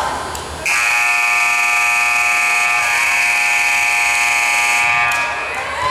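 Gymnasium scoreboard buzzer sounding one long, steady, harsh tone for about four and a half seconds, starting a little under a second in. Crowd chatter picks back up as it stops.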